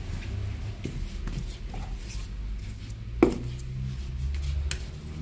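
A small hand knife clicking and scraping against ceramic tiles as grout is pressed into the joint between wall and floor tiles: a few sharp clicks, the loudest about three seconds in. A steady low hum runs underneath.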